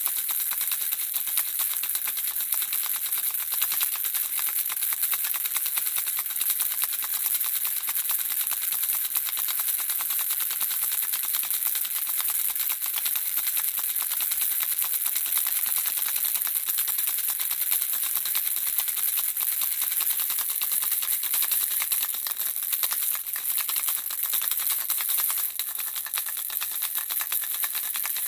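Handheld baby rattle shaken without a break: a dense, even stream of small beads clicking, bright and high-pitched.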